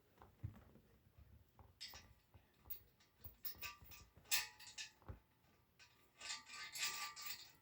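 Small metal hardware (bolts, nuts, washers) and wheel parts being handled: scattered clicks and clinks, with three bursts of rattling and light metallic ringing.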